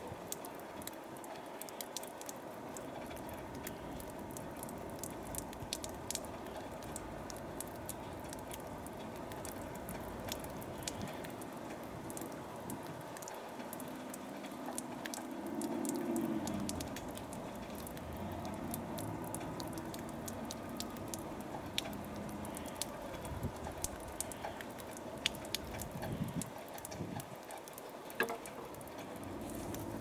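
Faint outdoor ambience: a steady low hiss with many light, scattered ticks and patters, and a low sound that swells briefly about halfway through.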